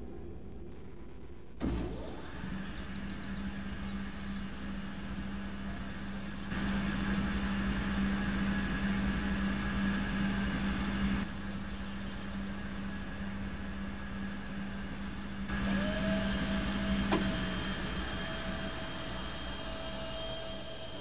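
Steady hum and whir of electric motors, starting suddenly about two seconds in. It grows louder around seven seconds, drops back near eleven, and swells again near sixteen.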